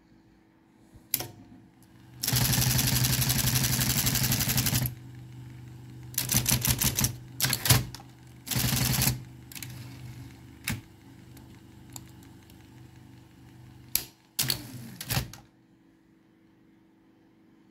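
Olympia electric typewriter's mechanism running on its motor: a low motor hum under a fast continuous clatter of strikes lasting about two and a half seconds, then shorter bursts of rapid clatter and single clicks. Near the end the hum and clatter stop and the machine falls silent.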